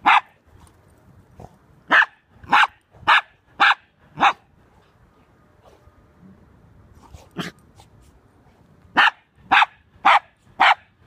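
A dog barking in short, sharp barks: one at the start, a run of five about half a second apart, a single bark about halfway through, and a run of four near the end.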